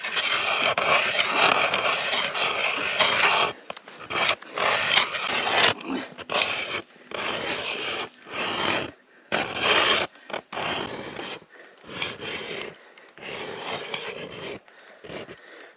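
Hand ice auger's steel blades grinding and scraping through river ice as it is cranked by hand. One long continuous rasp, then a run of shorter rasps with brief gaps.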